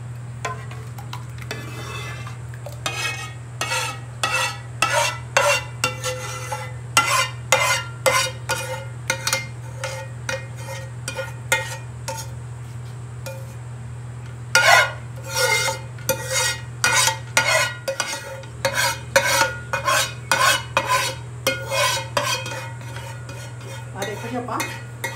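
A spoon scraping thick custard out of a non-stick frying pan, in quick strokes about two a second with a short pause about halfway through. A steady low hum runs underneath.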